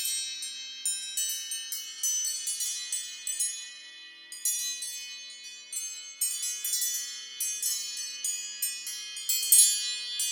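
An iPhone ringtone playing: high chime-like notes struck in quick, uneven succession, each ringing on over the next, with a brief lull about four seconds in.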